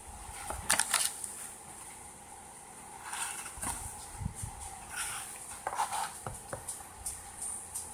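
Plastic blister pack on a cardboard card being handled and set on a table: a few sharp clicks and rustles, loudest about a second in, then scattered taps and crinkles.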